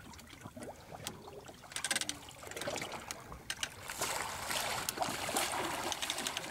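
Water splashing and sloshing as a hooked shark thrashes at the surface beside the boat, getting louder from about four seconds in.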